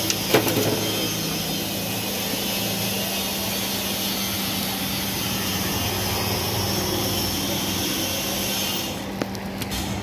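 Aloo pattice frying on a large flat iron griddle over a gas burner: a steady hiss and roar with a low hum underneath, and one short knock near the start. The high hiss thins out about nine seconds in.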